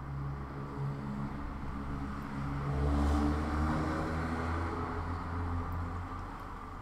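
An engine hum with a few steady tones that swells to its loudest about three seconds in, then slowly fades, like a vehicle passing.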